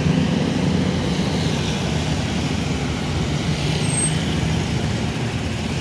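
Auto-rickshaw engine running, heard from inside the open cabin as a steady low drone, with surrounding road traffic.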